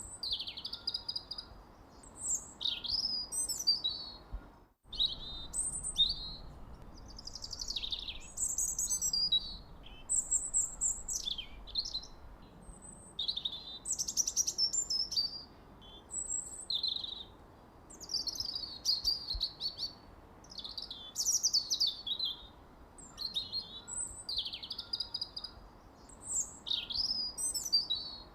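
Small songbirds chirping and twittering in quick, high-pitched, varied calls, with a brief break in the sound about five seconds in.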